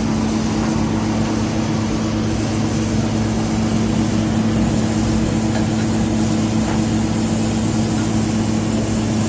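Amphibious excavator's diesel engine running steadily with an even, unchanging hum.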